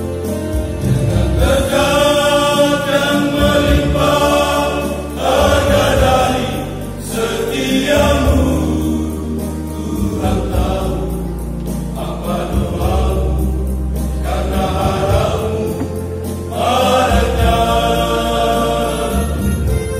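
A small church vocal group singing a hymn together in sustained phrases.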